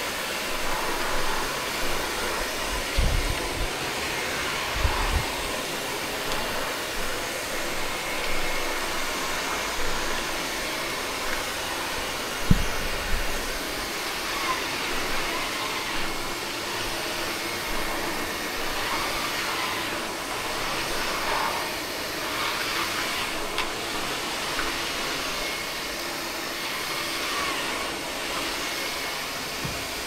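Roborock Flexi Pro cordless wet-dry vacuum mop running steadily as it is pushed across a hard floor, with a few brief low knocks in the first half.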